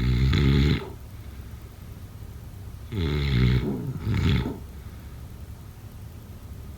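Snoring: one long snore at the start, then two more close together about three seconds in.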